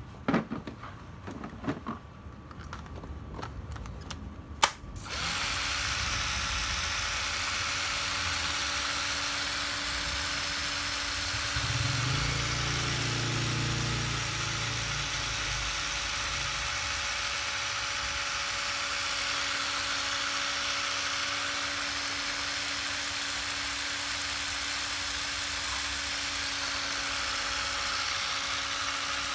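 A battery pack clicks into a Ryobi 7.2 V cordless drill, then the drill's small electric motor runs steadily at one speed for over twenty seconds, a test that the old battery still holds a charge. About twelve seconds in a low rumble swells for a couple of seconds.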